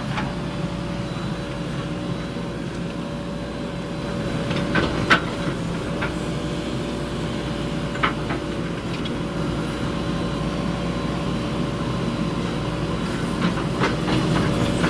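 JCB backhoe loader's diesel engine running steadily, with a few sharp metallic clanks about five seconds in, about eight seconds in and several more near the end.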